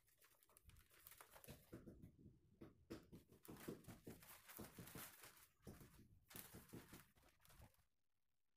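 Faint, irregular rustling and crinkling of a large sheet of tracing paper being handled. It stops suddenly near the end.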